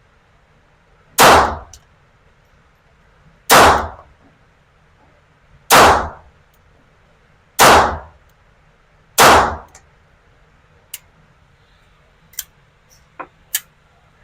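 Five shots from a GSG .22 LR rifle, fired one at a time at an uneven pace about two seconds apart, each a sharp crack with a short ringing tail. A few faint sharp clicks follow near the end.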